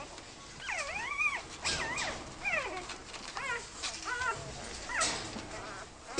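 A puppy whining: about six high whines that rise and fall in pitch, one after another.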